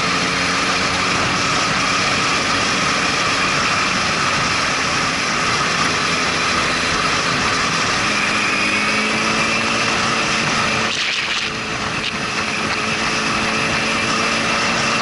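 A 2005 Honda CBR1000RR Fireblade's inline-four engine running steadily under way, mixed with the rush of riding. The engine note rises a little partway through and dips briefly about eleven seconds in.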